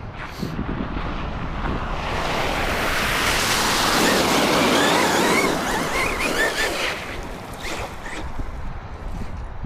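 Electric Arrma RC car driving through mud and water: a rush of splashing and wind noise that builds to a peak in the middle and then falls away, with the motor's whine rising and falling under it.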